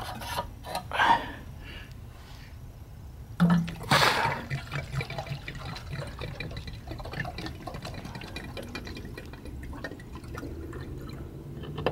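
Windshield washer fluid pouring out of an upturned plastic bottle into a lawnmower's fuel tank, filling it. A sharp burst about four seconds in, then a steady run of small pouring sounds.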